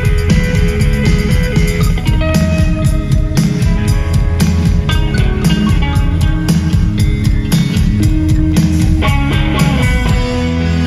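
Rock band playing live: electric guitars ringing out sustained notes over bass and a drum kit keeping a steady beat.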